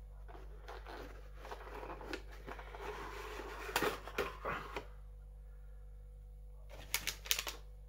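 Faint rustling and scraping of a cardboard toy box and a clear plastic blister tray as the tray is slid out, with a few light clicks and taps. It goes quiet just before the end, when a couple more clicks come.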